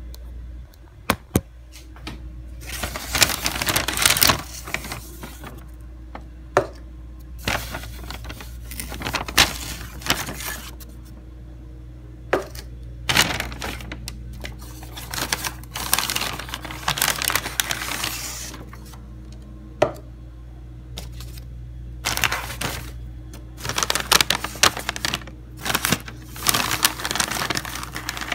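Paper takeout bag and food wrappers rustling and crinkling in irregular bursts as hands rummage inside and shift the wrapped food and lidded coffee cups, with sharp clicks and taps between the bursts. A low steady hum runs underneath.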